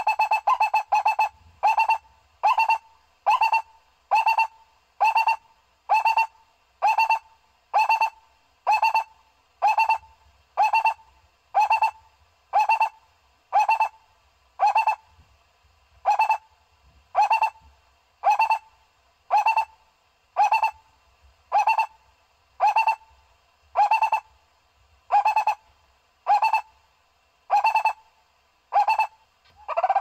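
Barbet call: a long series of evenly spaced single notes, about three every two seconds, with a little faster spacing in the first second.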